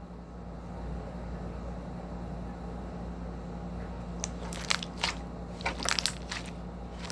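Slime being squeezed and worked by hand, giving a run of sharp crackling pops and clicks in the second half, over a steady low hum.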